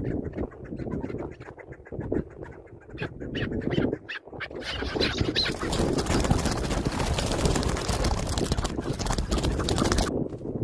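Chukar partridge calling in rapid, repeated clucks and squawks. From about four seconds in, a loud, even hiss-like noise takes over and cuts off suddenly near the end.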